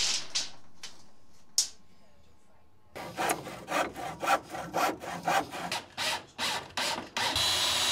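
Handsaw cutting a pine batten in quick back-and-forth strokes, about three a second. Near the end a steady motor whirr with a thin whine takes over.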